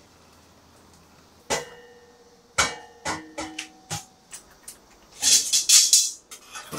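Stainless steel kitchen utensils and a perforated steel strainer clanking together: a ringing clang about a second and a half in, then a run of lighter clinks, and a dense rattling clatter of metal near the end.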